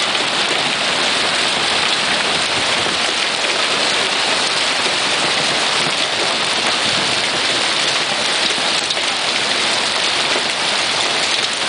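Hail mixed with rain falling steadily on a hail-covered lawn, a dense even hiss of many small impacts as the storm eases a little.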